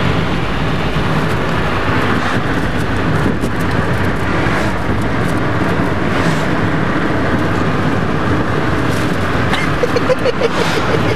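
Steady road and engine rumble of a moving car, heard from inside the cabin with the driver's window down. A brief voice is heard about ten seconds in.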